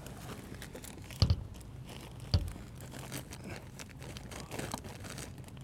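Plastic wrap on packs of paper towels rustling and crinkling as they are shifted and brushed against, with two dull thumps about a second apart, the first a little over a second in.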